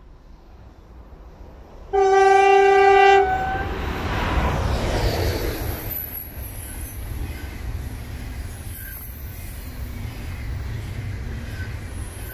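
Deutsche Bahn ICE train sounding one horn blast of about a second, two seconds in, then running past close by with a steady rumble of wheels on rail.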